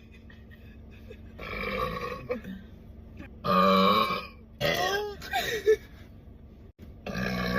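Three long, drawn-out burps from a young woman: a moderate one, then a loud one, and another near the end, with short pitched vocal sounds between the second and third.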